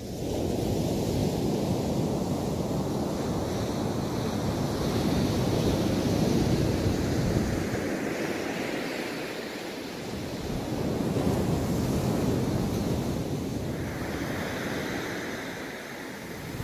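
Ocean surf breaking on a sandy beach: the rush of the waves swells and ebbs twice, each surge followed by the hiss of foam washing up the sand.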